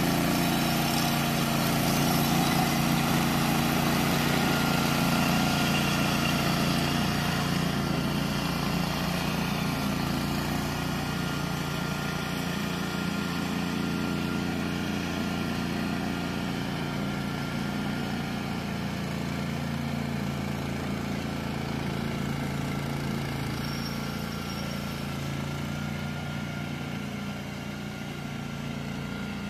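Small gasoline engine of a walk-behind mower running steadily under load as it cuts through tall, dense weeds. It slowly grows quieter as the mower moves farther away.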